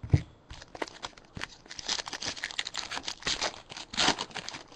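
Foil wrapper of a basketball card pack being torn open and crinkled by hand, the crinkling densest in the second half, with a sharp knock just after the start.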